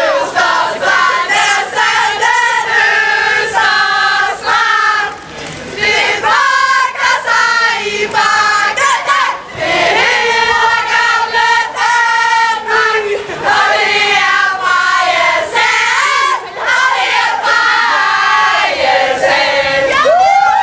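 A team of girls singing a victory song together in loud unison, phrase after phrase, with short breaks between lines.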